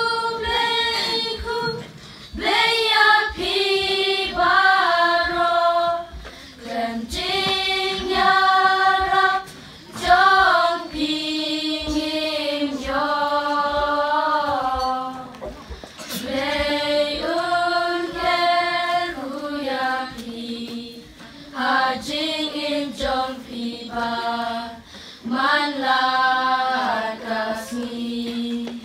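A group of children singing together unaccompanied, in long held phrases with short breaks between them.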